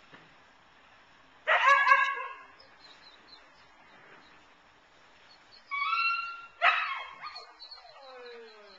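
A dog barks and whines: a sharp bark about a second and a half in, a high whine near six seconds, a second bark just after it, and a whine that falls in pitch near the end.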